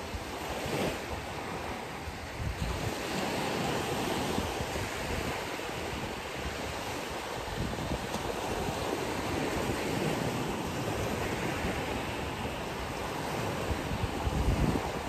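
Ocean surf washing onto a beach in a steady rush that swells and eases. Wind buffets the microphone with low rumbles, strongest near the end.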